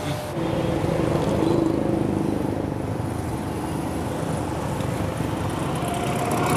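Street traffic: steady road noise with a motorcycle engine running past.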